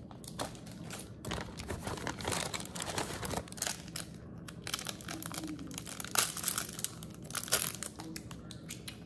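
Plastic packaging crinkling and rustling in irregular crackles as small fidget toys are unwrapped by hand, louder around the middle and near the end.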